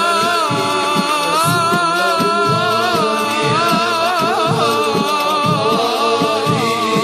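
Middle Eastern devotional music: a wavering, ornamented melody line over a steady hand-drum beat.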